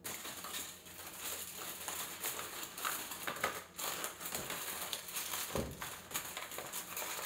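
Aluminium foil crinkling and crackling as it is pressed and crimped down over a disposable aluminium baking pan.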